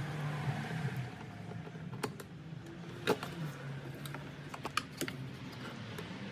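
Scattered sharp clicks and taps, about half a dozen, the loudest about three seconds in and a quick cluster near five seconds, over a steady low hum.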